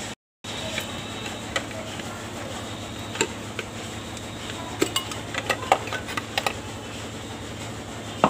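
Small metallic clicks and clinks as the cylinder head cover of a Bajaj Discover 100T engine is worked loose and lifted off by hand, with a quick run of taps about five to six and a half seconds in.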